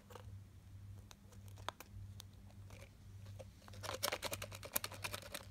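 Hard plastic surprise egg handled and shaken in the hand, giving faint scattered clicks and then a quick run of rattling plastic clicks about four seconds in.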